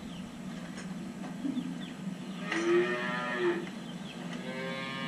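A calf bawling in the barn: one long call about two and a half seconds in that rises and falls in pitch, then a second, flatter call starting near the end.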